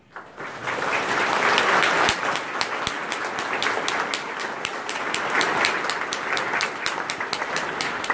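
Church congregation applauding, starting suddenly and swelling to full applause within about a second, then holding steady.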